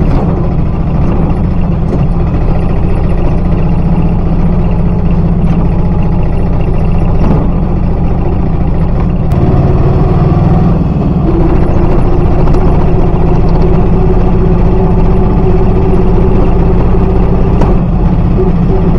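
Auto rickshaw engine running while under way, heard from inside the open cab along with road rumble; about halfway through its note settles into a steady hum.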